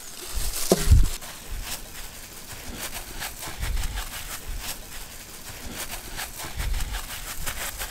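Gloved hands pressing and smoothing mashed potato over a large steel tray: soft squishing and a run of small crackles from the plastic gloves, with a few dull low thuds.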